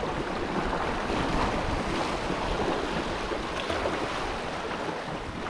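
Sea waves washing steadily, with wind buffeting the microphone.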